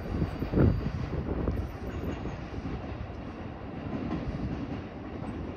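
JR East 255 series limited express electric train pulling away, its wheels clacking over rail joints and points with a steady low rumble. One loud knock comes about half a second in.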